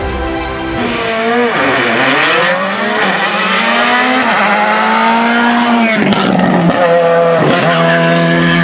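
Rally car engine at full throttle, its pitch climbing and then dropping sharply at each of several gear changes as it accelerates past.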